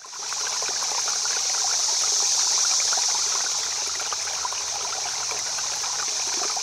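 Running water of a stream babbling over stones, a steady rushing with many small splashes, fading in at the start and beginning to fade out near the end.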